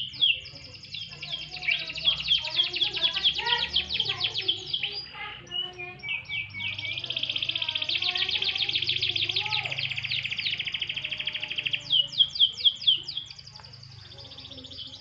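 Domestic canary singing a long, rapid song of trills and rolling phrases. Near the middle it holds one long, fast trill for about five seconds, then gives a few sharp downward-sweeping notes.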